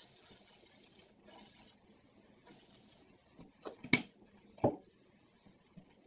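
Aerosol hairspray sprayed in three hissing bursts, the first lasting about a second, then two shorter ones. About four seconds in come a few sharp knocks, the loudest sounds here.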